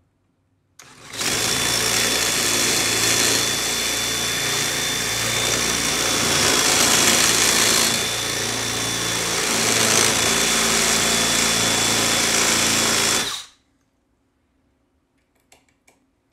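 Cordless drill running steadily with a high whine, its twist bit boring into the hard metal face plate of a padlock held in a vise. It runs for about twelve seconds, with small dips in loudness under the load, then stops abruptly, and a few faint clicks follow.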